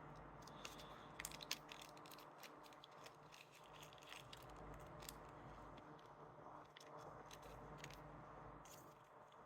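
Faint crinkling and clicking, densest in the first three seconds and scattered after, over a low steady hum: small electronic parts and their packaging being handled on a workbench.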